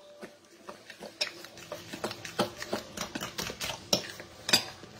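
A fork stirring a thick nut-and-egg batter in a glass mixing bowl, clicking and scraping against the glass at an irregular pace, with one louder clink near the end.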